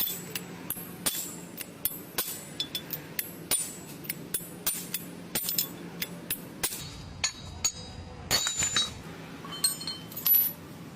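Irregular light metallic clinks and taps of tools and parts at work, a few louder strikes near the end, over a steady low hum.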